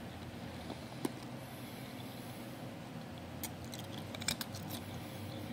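Ice being sucked and chewed in the mouth: a few faint clicks and crunches, a small cluster near the end, over a steady low hiss.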